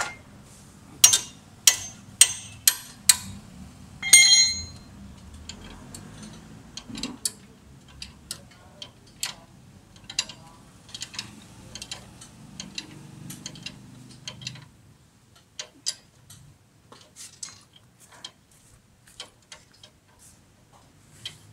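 Metal hand tools working on a car's suspension parts: a run of sharp metallic clicks about two a second, a louder ringing metal clink about four seconds in, then scattered lighter clicks and taps.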